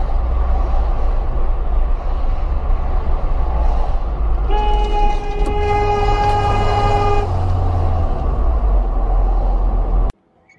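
Steady road and engine noise inside a moving car. A car horn sounds for about three seconds from a little before halfway through. The sound cuts off abruptly near the end.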